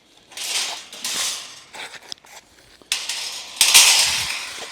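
Metal crate-fence panels being handled and set down: clattering and rustling in two spells, one about a second in and a louder one from about three seconds in.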